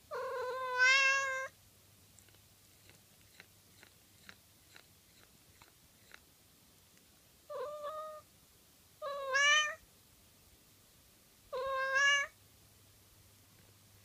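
Tabby-and-white cat meowing four times: one long meow at the start, then three shorter ones in the second half. Faint small clicks fall in the pauses between.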